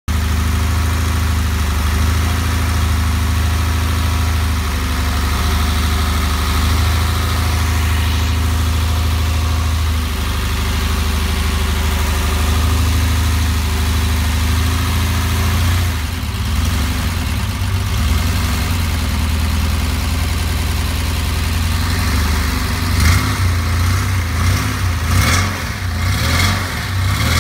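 The 3.6-litre air-cooled flat-six of a 1969 Porsche 911 running shortly after startup, steady at first, then uneven and wavering from about halfway, with several sharp blips near the end. The unevenness is the sign of a misfire that is still being chased down.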